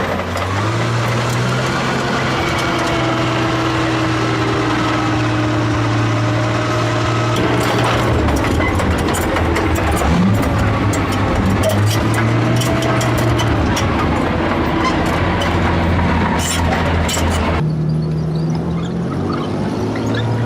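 Heavy vehicle engine running with a steady low drone, its pitch gliding up near the start, with many sharp clicks and knocks through the middle. The sound changes abruptly near the end, as if at an edit.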